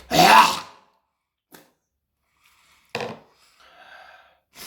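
A man's voiced sigh, then after a pause a short breath about three seconds in and a faint rush of breath lasting about a second.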